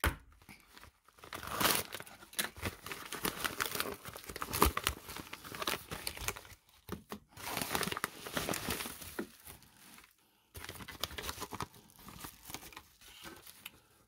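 Yellow kraft padded bubble mailer crinkling and tearing as it is pulled open by hand. The crackles come irregularly, with a couple of brief pauses.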